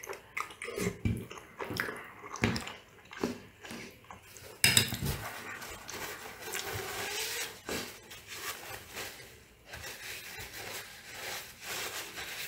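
Close-up chewing and slurping of pasta, with small clicks of a fork and spoon. About four and a half seconds in, the cutlery clatters down onto the plate. Then comes a long, steady rustle of a paper napkin as it is rubbed over the mouth.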